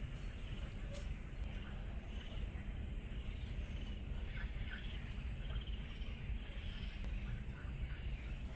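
Steady high chirring of insects, with a few faint short chirps in the middle and a low steady rumble underneath.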